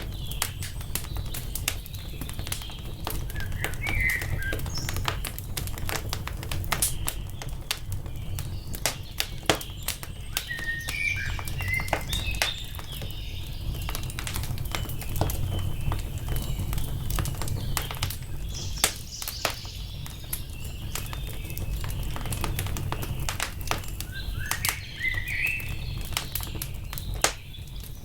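Wood fire crackling, with frequent sharp pops over a steady low rumble, while small songbirds chirp in short phrases a few times.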